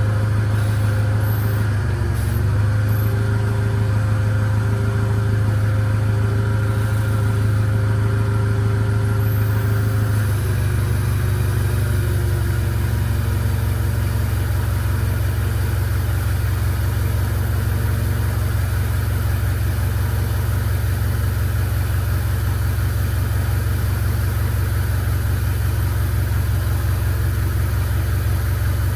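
A steadily running engine drone with a strong low hum. It dips briefly about two seconds in and settles into a lower, rougher note about ten seconds in.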